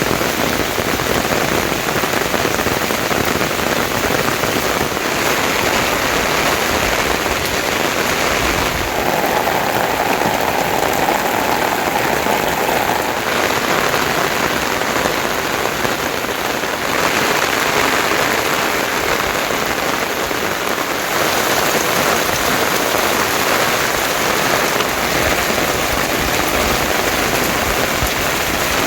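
Steady rain falling on surfaces, its sound changing in character every few seconds.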